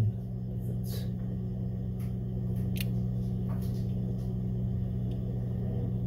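Steady low electrical hum, with a few faint light clicks of needle-nose pliers twisting thin keychain wire onto a test lead.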